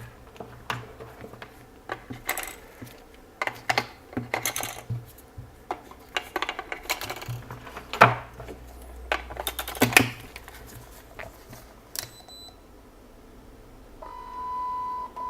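AA batteries being loaded into a Yongnuo YN685 speedlight's battery compartment: irregular clicks, clinks and knocks of the cells and the plastic case, and a sharp snap about twelve seconds in as the battery door closes. Near the end the flash, powered on, gives a steady electronic beep lasting about two seconds with a brief break.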